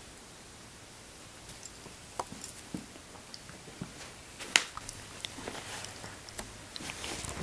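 Cat playing with a furry catnip toy on carpet: faint, scattered soft taps, rustles and clicks of paws and bites on the toy, with one sharper tap about four and a half seconds in.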